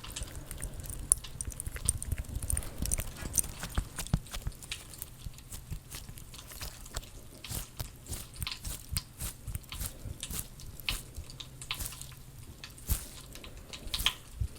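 Large gummy-bear squishy toys squeezed and handled close to the microphone, making irregular sticky clicks and crackles.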